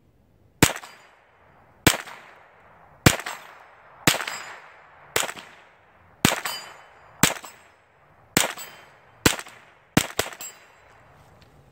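Calico M100 .22 LR semi-automatic blowback rifle firing eleven single shots, about one a second, the last two in quick succession; each sharp crack trails off in a short echo.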